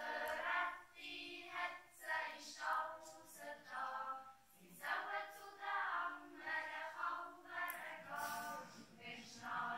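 Children's yodel choir singing a cappella, the voices beginning together right at the start and carrying on in sung phrases.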